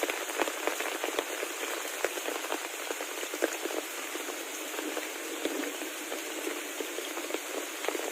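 Heavy rain falling steadily, a dense even hiss with frequent sharper taps of individual drops striking a surface.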